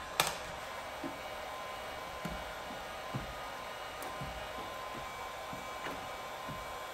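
Heat gun blowing steadily with a faint whine in its airflow. It is used to soften tint film on a headlight. There is one sharp click near the start.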